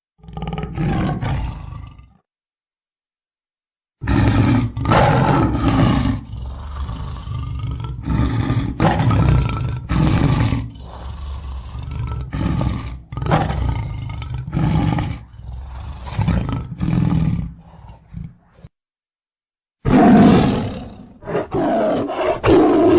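Tiger roaring. A short call opens, then after a silent gap comes a long run of repeated roars, then another brief silence and a final roar near the end.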